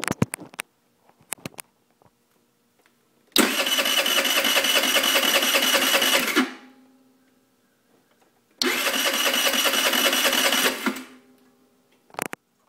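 A 2008 Peace 50cc scooter's starter cranks the engine twice, each time for about three seconds, and the engine does not catch. The owner believes it is not getting fuel after the carburettor was cleaned.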